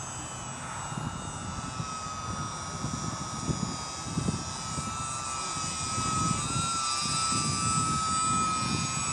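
A micro electric RC plane, an E-flite UMX Turbo Timber, flying by with its electric motor and propeller holding a steady high whine that wobbles briefly in pitch about two-thirds through. The whine grows louder as the plane passes overhead, over a gusty low rumble.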